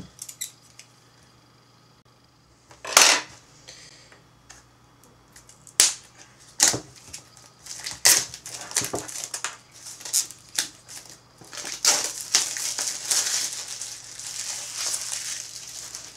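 Scissors snipping and plastic shrink-wrap being cut and pulled off a cardboard product box: several sharp snips and cracks, then a few seconds of crinkling plastic near the end.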